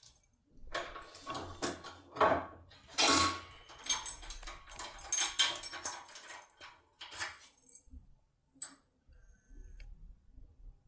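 A compact universal pick-decoder going into a single-row ABUS lock cylinder and being worked: a string of small metallic clicks and rattles, with short bright metal rings.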